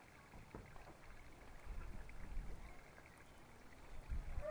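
Quiet shoreline ambience: sea water washing against rocks, with low rumbling swells about halfway through and again near the end.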